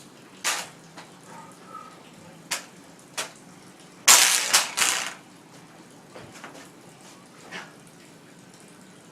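Martial-arts moves making several short, noisy bursts. The loudest is a quick run of three about four seconds in, with single ones before and a faint one near the end.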